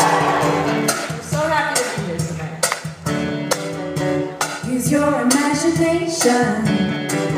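A live band playing: electric guitars and drums, with a voice singing.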